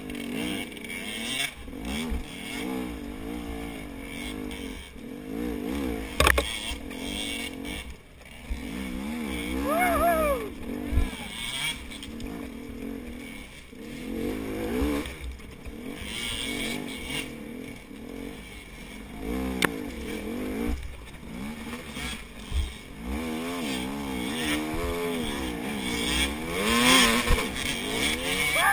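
KTM 250 XC two-stroke dirt bike engine revving up and down over and over as it is ridden along a rough trail, with sharp knocks now and then from the bike hitting ruts and bumps.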